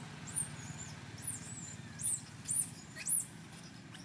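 A series of short, very high-pitched animal squeaks, about seven in four seconds, each rising then falling in pitch; the loudest comes about three seconds in.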